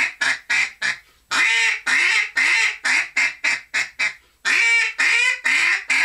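Cadence duck call blown in mallard hen comeback calls: sets of three drawn-out quacks, each followed by a quick run of shorter quacks. It is the signal for turning back ducks that are leaving.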